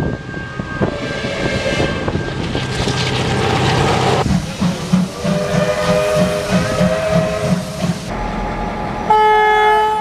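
Several train sounds in quick succession: train noise with a horn for the first few seconds, then a steam locomotive's whistle sounding over a steady beat of exhaust chuffs, then a short two-tone diesel locomotive horn blast near the end.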